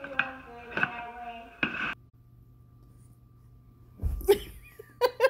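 A person's voice talking for the first two seconds, then a near-quiet stretch with a faint hum. About four seconds in comes a loud thump and rustle, and near the end a quick run of short voice pulses.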